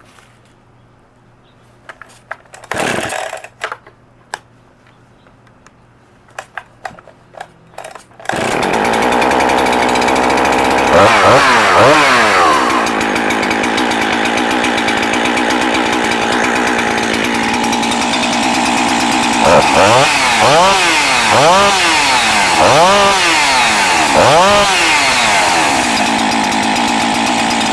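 Jonsered CS2165 two-stroke chainsaw being started: a few clicks and knocks as it is readied, then it fires about eight seconds in and runs. It is revved once, then blipped up and down about six times in quick succession before running steadily again.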